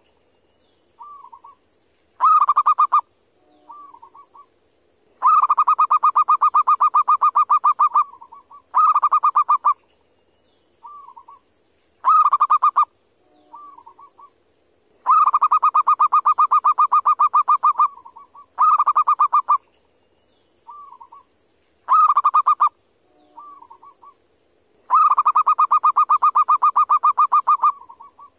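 Zebra dove (perkutut) calling: about eight loud bouts of fast-pulsed cooing, some under a second and some running two to three seconds, with short soft single notes in the gaps between them.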